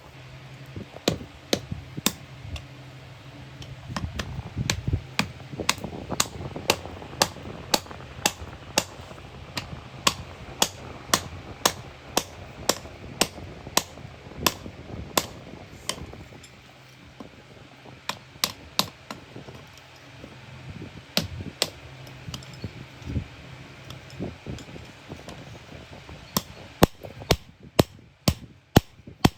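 Hammer striking iron on an anvil in an even rhythm of about two blows a second, with a short pause midway and a quicker run of blows near the end, over a low steady hum.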